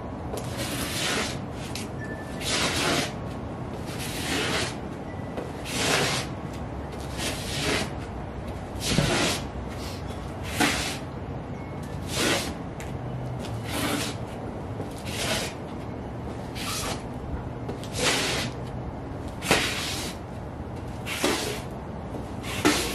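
Sheepskin Ugg boot soles scuffing and sliding on a concrete floor, one short scrape about every second and a half, over a steady outdoor background hum.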